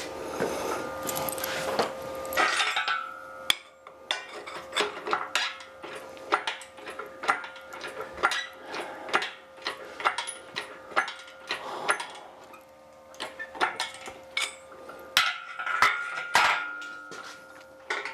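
Hand chain hoist on a gantry crane being worked, its chain clinking and clicking about twice a second while lifting a surface grinder, over a faint steady hum.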